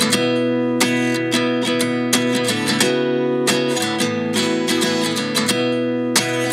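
Background music: strummed acoustic guitar playing a steady chord pattern, the instrumental intro of a pop song.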